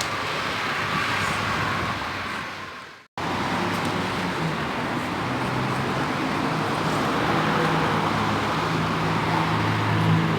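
Steady vehicle and road traffic noise. The sound fades out and cuts back in about three seconds in, and after that a low engine hum grows stronger.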